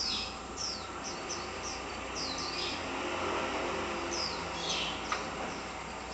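Small birds chirping: short, high, downward-sliding chirps at irregular intervals over a steady background hum, with a sharp click about five seconds in.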